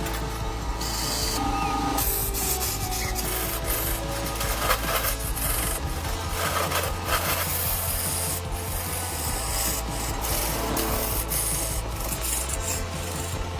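Hand-held turning tool scraping and cutting into a large wooden blank spinning on a wood lathe: a continuous rasping, shaving sound that rises and falls as the tool bites, over the lathe's steady low hum.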